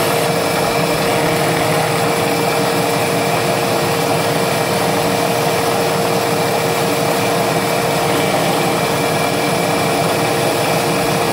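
CNC milling machine cutting thin aluminium plate with an end mill: the steady, unbroken whir and hiss of the spindle and the cut, with a steady hum under it.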